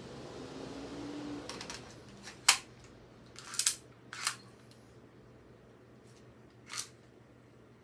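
Sharp mechanical clicks and clacks of an airsoft M1911 pistol's slide and action being worked by hand: about five of them, the loudest about two and a half seconds in, a quick pair about a second later, and a last lone click near the end. A soft rushing noise comes before them in the first second or so.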